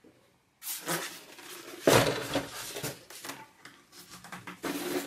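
Handling noise from packaging being moved on a table: rustling and light knocks that come in three bursts, the loudest about two seconds in.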